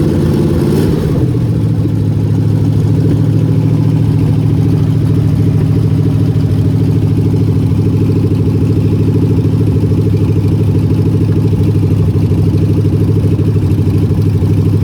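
Mopar 400 big-block V8 running, easing down from slightly higher revs to a steady idle about a second in; the engine has bad bearings.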